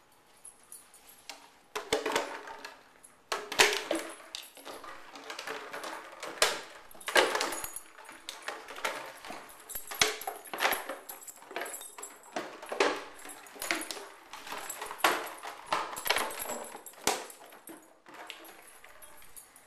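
A dog pushing and biting at an empty clear plastic bottle with popcorn inside, the plastic crinkling and clattering on the carpet in irregular bursts, quieter again near the end.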